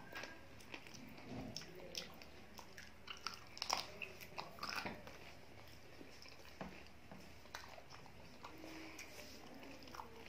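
Close-miked chewing of rice and chicken curry eaten by hand, heard as scattered short clicks, loudest about four to five seconds in, along with fingers working the rice on the plate.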